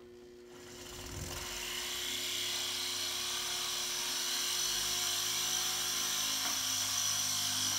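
Flex-shaft rotary tool spinning up about a second in, then running steadily with a high whine as its drill bit grinds a hole into a pebble.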